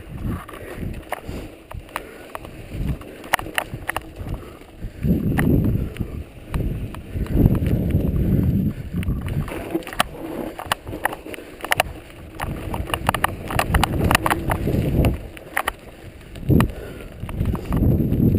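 Mountain bike riding downhill over snow and then gravel: tyres crunching, the frame and parts rattling with frequent sharp clicks and knocks over bumps, and gusts of wind rumbling on the microphone.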